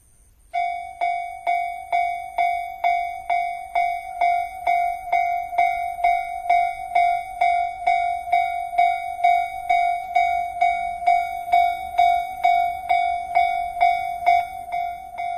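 Railway level-crossing warning bell starting up about half a second in and ringing on steadily at about two strikes a second, each strike a clear ringing tone that dies away before the next: the signal that a train is approaching the crossing.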